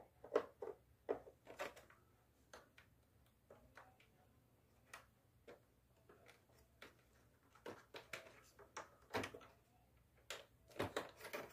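Scattered light clicks and taps of plastic parts being handled on a Daikin split-type air conditioner's indoor unit, at irregular intervals and bunching together near the end.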